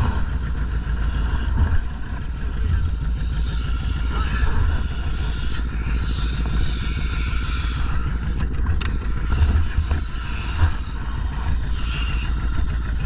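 A small boat's engine running steadily while under way, with a steady hiss over it.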